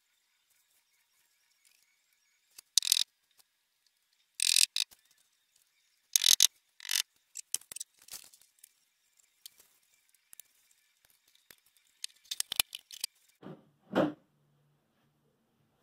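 Hand tools and hardware being handled during flat-pack desk assembly: short bursts of clicking and rattling, then scattered small clicks, and a dull thump near the end.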